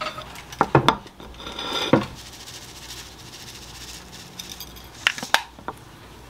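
A ceramic plate knocks twice as it is set down on the counter, then a sesame grinder bottle is turned over the food with a dry, grainy grinding that grows louder and ends about two seconds in. A few more light clinks of dishes follow a little after five seconds.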